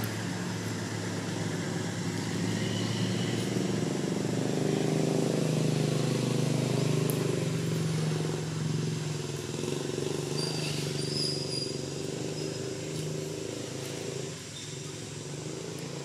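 A motor vehicle engine running steadily, growing louder towards the middle and dropping off a little about two-thirds of the way through.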